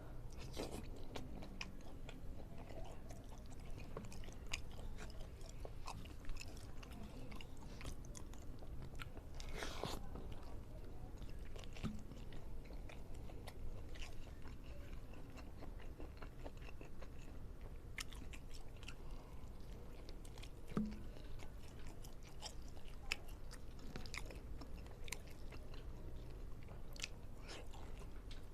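Close-miked chewing and biting of a meal, with wet mouth sounds, scattered crunches and sharp clicks, one louder crunch about ten seconds in.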